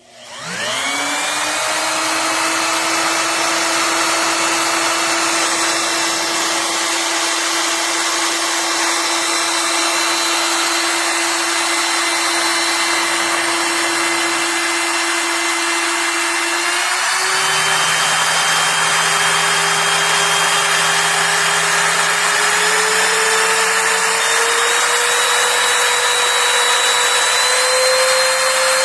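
AVID Power 6.5 A compact wood router's motor spinning up from a standstill and running free with a steady high whine. About two-thirds of the way through, its pitch steps up, and it rises again near the end, as the variable speed is turned higher.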